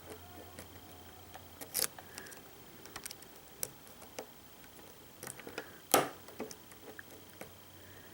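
Irregular small metallic clicks and ticks of a hook pick working the pins of a pin-tumbler lock under light tension, with two louder clicks about two seconds in and about six seconds in.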